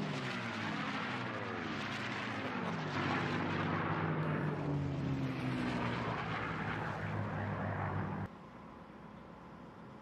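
P-51D Mustang racer's Merlin V12 engine and propeller at full power on a fast low pass. The engine note falls in pitch twice as the plane goes by. The sound drops off sharply about eight seconds in.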